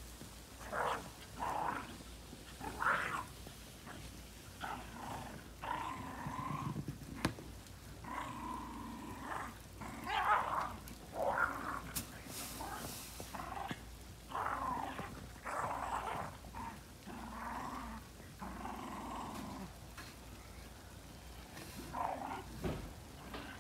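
Two Shiba Inu dogs play-fighting, with repeated short growls and grumbles, some held for about a second.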